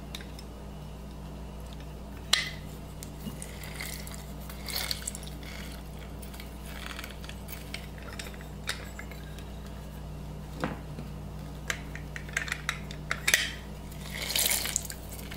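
Hand-held citrus press squeezing lime juice into a glass bowl: scattered clicks and knocks of the press and bowl, with a few short wet squeezing sounds, the longest near the end.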